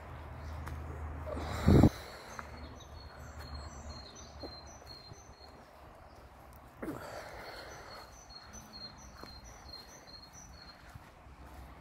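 A small songbird singing in two bursts of quick, repeated high notes, over a low outdoor rumble. There is a loud sudden thump about two seconds in.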